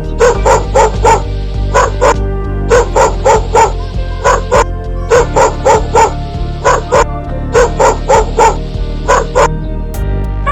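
Dog barking in quick runs of several short, sharp barks, about four a second, with brief pauses between runs, over steady background music.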